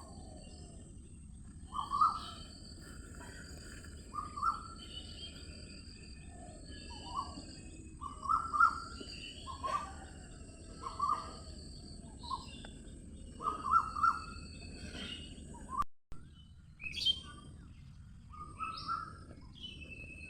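Several birds singing and calling. Short calls repeat every second or two with thinner higher chirps between them, over a steady low background hiss, and the sound cuts out briefly about 16 seconds in.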